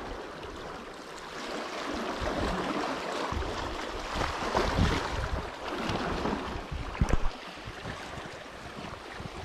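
Sea waves washing against the shore, with wind buffeting the microphone. There is one sharp knock about seven seconds in.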